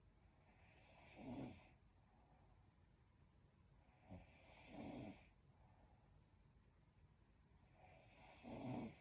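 A young woman snoring softly in her sleep: three snores about four seconds apart, each building up to a brief peak and then stopping.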